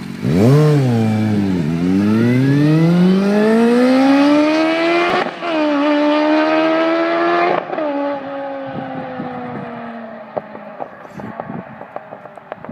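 2006 Kawasaki Z750S inline-four, running an aftermarket Pipe Werx carbon round exhaust and an open airbox, accelerating hard. A quick rev, the revs sag as it pulls away, then a long rising run to an upshift about five seconds in and a further climb in the next gear. The throttle closes sharply about seven and a half seconds in, and the lower note falls and fades as the bike moves away.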